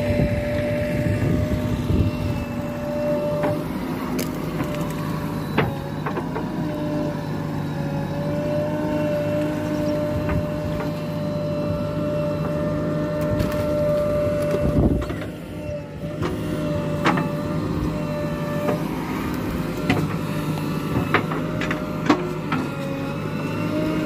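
JCB 3DX Eco-Xpert backhoe loader's diesel engine running steadily under working load with a steady high whine over it, while the backhoe digs. There are occasional sharp knocks, and the sound dips briefly just past the middle.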